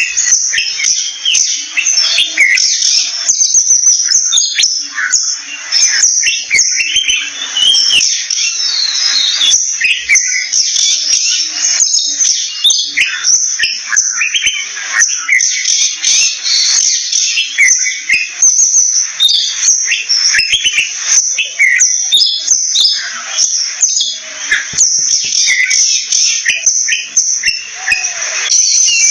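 Oriental magpie calling in a rapid, continuous stream of short, varied, high chirps and chattering notes, with no pause.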